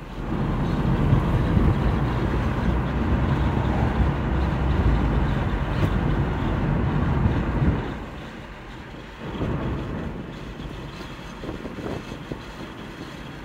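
Road noise inside a moving Mazda car: a low rumble of tyres and engine, loud for the first eight seconds or so, then dropping to a quieter hum.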